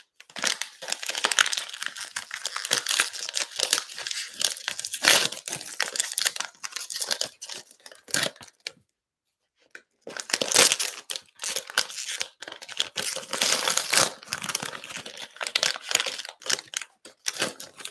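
Plastic cello wrappers of Panini Illusions basketball card packs being torn open and crinkled by hand, in two stretches of dense crinkling with a pause of about a second near the middle.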